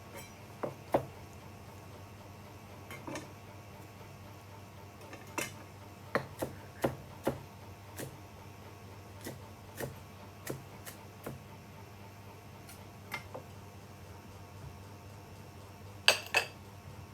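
Kitchenware clinking: irregular sharp knocks and clinks of utensils against pans and dishes, about eighteen in all, the loudest a close pair near the end, over a steady low hum.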